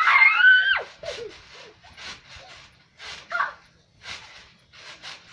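A person's high-pitched scream, under a second long, that drops in pitch as it cuts off. Faint short scuffing noises follow, with a brief vocal sound about three seconds in.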